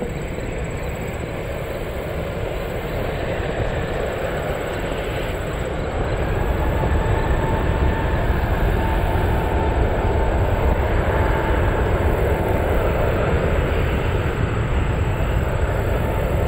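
Jet airliner engine noise: a steady rush that grows louder about six seconds in, with a faint whine held over it.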